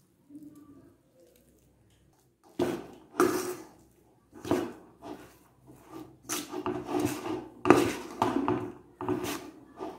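A perforated steel spoon stirring and scraping a moist flour dough around a stainless steel mixing bowl. It starts quiet, then from about two and a half seconds in comes a string of scrapes and knocks, roughly one or two a second.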